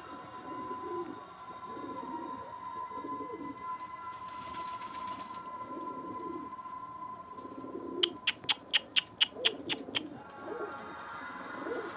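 Pigeons cooing in repeated low calls, with a quick run of about eight sharp clicks about two-thirds of the way through.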